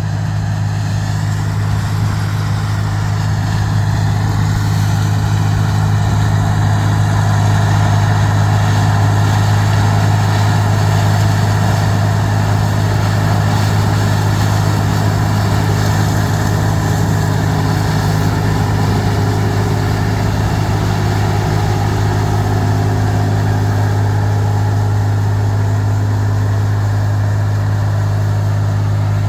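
Claas Dominator 108 SL combine harvester running steadily while harvesting corn: a continuous low engine drone with machinery noise over it.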